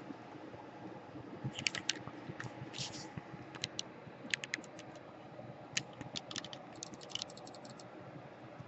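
Irregular light clicks and taps, clustered in quick runs, from small tools and parts being handled at the workbench during a laptop power jack soldering job.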